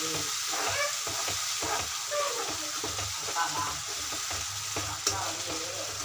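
Spoon stirring and scraping through a thick tomato masala in a kadai while it sizzles steadily on the flame.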